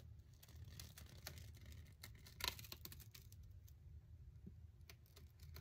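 Faint, irregular snips of scissors cutting through cardstock, the clearest about two and a half seconds in, over a low steady room hum.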